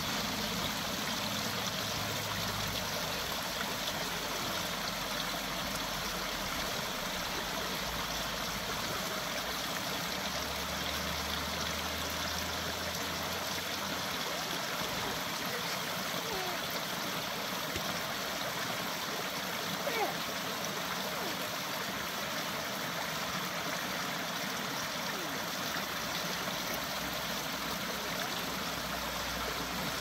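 Small woodland stream trickling and splashing in little cascades over stones and fallen branches, a steady even rush of running water. A brief faint sharp sound stands out about two-thirds of the way through.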